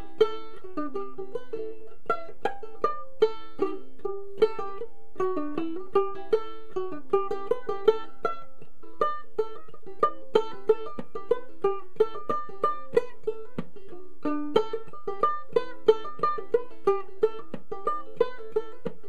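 Ukulele played clawhammer style: a solo old-time fiddle tune picked as a steady, rhythmic run of plucked melody notes punctuated by sharp brush-strums.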